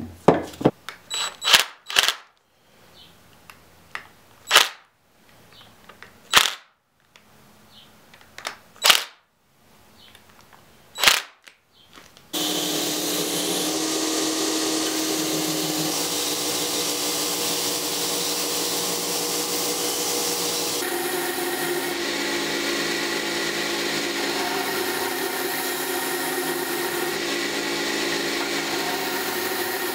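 A series of sharp clicks and knocks as metal parts are handled on a workbench. About twelve seconds in, a belt grinder starts running steadily as the tomahawk's handle is ground against its contact wheel, its pitch shifting a few times as the handle is pressed in and moved.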